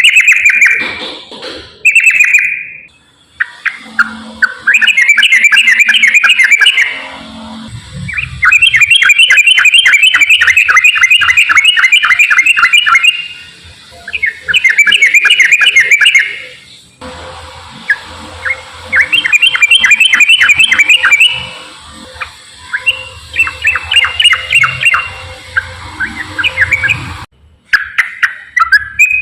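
Yellow-vented bulbul (trucukan) singing its fast chattering 'ropel' song: rapid strings of repeated notes in bursts of a few seconds each, separated by short pauses.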